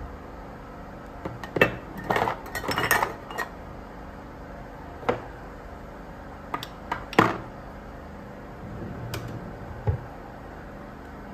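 Clinks and knocks of hard household objects being handled and set down: a quick cluster about two to three seconds in, then single knocks spread through the rest, over a steady low hum.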